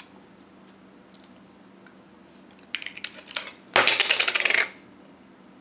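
Snap-on Nikon lens cap unclipped from a 50mm Series E lens with a few sharp clicks, then a dense, rapid rattle lasting just under a second, the loudest part, as the plastic cap clatters and settles on a hard surface.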